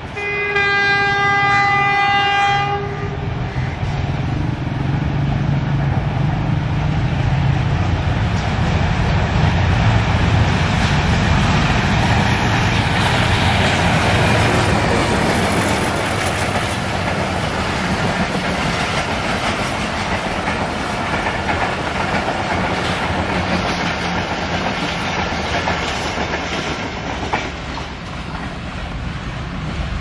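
Hitachi HBU-20 diesel-electric locomotive sounds one long horn blast lasting about three seconds, then runs past hauling its express coaches, engine and wheels making a loud steady rumble that eases a little near the end as the train moves away.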